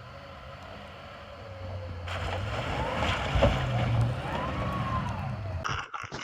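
Off-road truck engine running, its pitch rising and falling twice in the middle as it revs, under a steady hiss of wind noise on the microphone.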